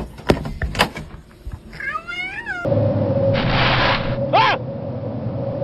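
A few sharp knocks, then a cat's wavering meow about two seconds in. After a cut, a kitten gives a breathy hiss and a short high meow over a steady hum.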